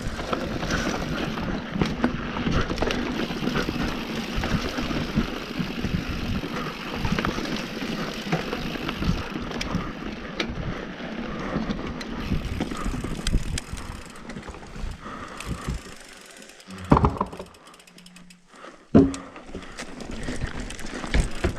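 A mountain bike rolling fast down a dirt trail, with tyres running over the ground and small rattles and clicks from the bike. Near the end the riding noise drops away and two loud knocks come about two seconds apart.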